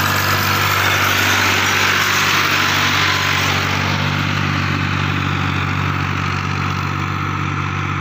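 Tractor diesel engine running steadily under load while pulling a field implement through dry soil.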